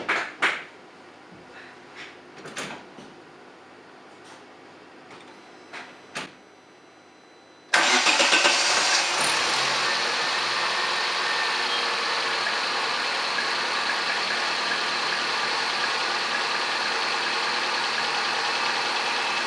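A few short clicks, then about eight seconds in the Opel Zafira's 1.6-litre 16-valve Z16XEP petrol engine is started and catches at once. It settles into a steady, quiet idle with no knocking, now that the loose, rattling part in the intake manifold has been secured.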